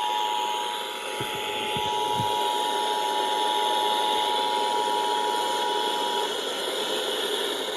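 EAS two-tone attention signal: two steady tones just under 1 kHz sounding together over radio static hiss, announcing a severe thunderstorm warning. The tones cut off about six seconds in, leaving only the hiss.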